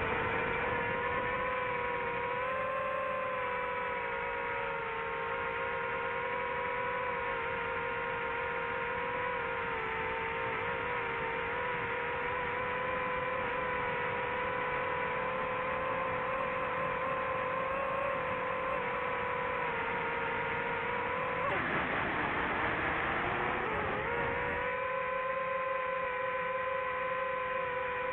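DJI FPV drone's motors and propellers whining at a steady pitch, wavering slightly; about three-quarters of the way through the pitch drops away and sweeps back up, then holds steady again.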